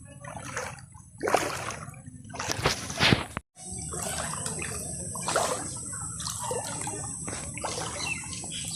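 Footsteps wading through shallow floodwater, with irregular splashes and sloshes at each step. The sound drops out completely for a moment about three and a half seconds in, then the splashing carries on.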